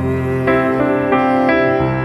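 Background instrumental music: a melody of held notes, a new note every fraction of a second, over a steady low bass.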